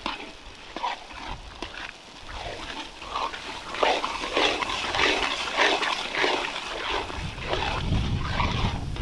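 Onion-tomato masala frying in oil in a large metal kadai as ground spices are tipped in, then a metal ladle stirring and scraping through it against the pan in quick, uneven strokes from about four seconds in.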